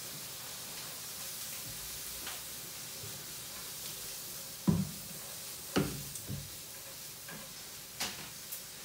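Food sizzling steadily in a frying pan, a high even hiss, with a few sharp knocks about halfway through.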